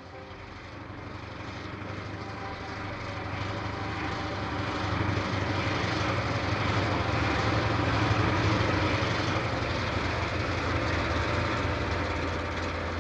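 A pair of EMD SW8 switcher locomotives, their eight-cylinder 567 diesel engines running with a steady low drone as they approach and pass, growing louder to a peak about eight seconds in and easing slightly after.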